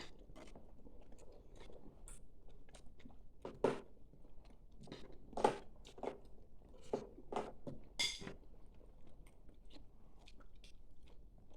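Someone chewing food at close range: irregular short mouth clicks, with a few louder ones in the middle.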